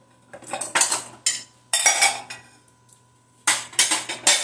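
Metal cutlery and kitchen dishes clinking and rattling in three short flurries: about half a second in, around two seconds in, and again near the end.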